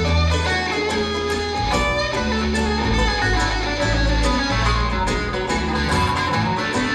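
Live bluegrass band playing: picked acoustic guitar and mandolin over upright bass.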